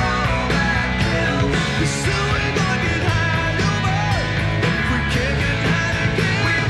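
Live rock band playing loudly: electric guitar, bass guitar and drums with a steady beat, and singing into the microphones.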